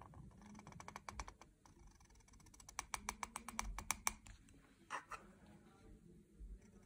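Cut nib of a bamboo calligraphy pen (qalam) scratching over paper while it lays down inked strokes: a quick run of small, dry clicks that comes thickest in the middle, with a couple more about five seconds in.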